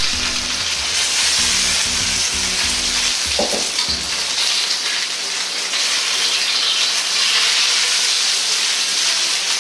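Chicken thighs sizzling skin-side down in a wok, shallow-frying in their own rendered fat to crisp the skin: a steady, dense hiss.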